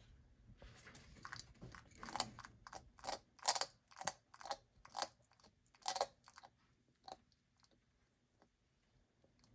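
Bearded dragon biting and chewing crunchy food: a run of crisp crunches, about two a second, loudest in the middle and tailing off into a few faint clicks near the end.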